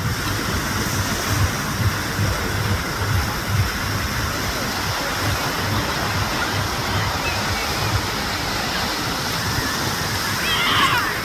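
Steady rush of moving water, with wind buffeting the microphone in low gusts. A short chirping bird call comes near the end.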